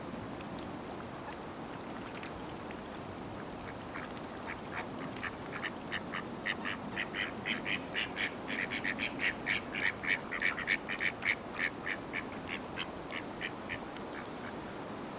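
A duck quacking in a long run of short, evenly repeated calls, about three a second. The calls grow louder to a peak and then fade away, over steady background noise.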